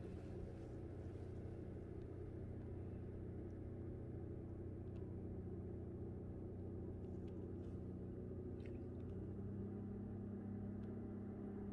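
An engine running steadily at a distance, a low droning hum that shifts slightly in pitch about nine seconds in, with a few faint ticks over it.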